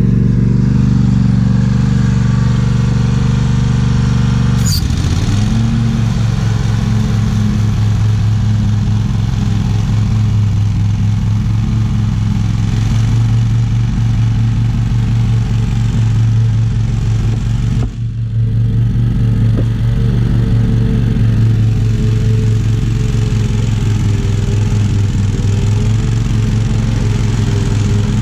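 Riding lawn mower engine running steadily under load while cutting thick, tall grass. About five seconds in the engine note drops sharply for a moment, then picks back up.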